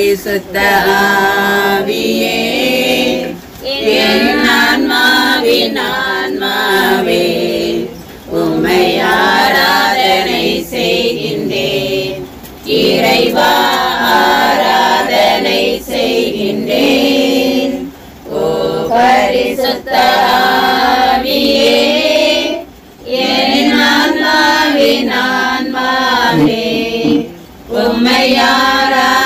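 A group of voices singing a devotional hymn together, in phrases of about four to five seconds with brief breaks between.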